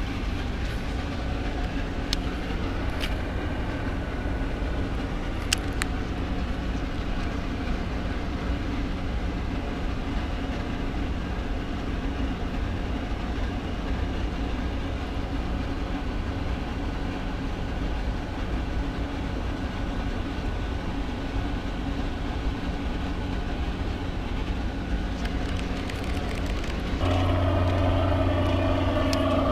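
Steady low motor hum over outdoor background noise, with a few faint clicks in the first seconds. About 27 seconds in, a louder engine sound joins and raises the level.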